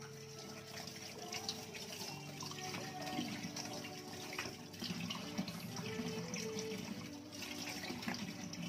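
Kitchen tap running into a stainless steel sink as vegetables are rinsed by hand under the stream, with splashing and small knocks of handling.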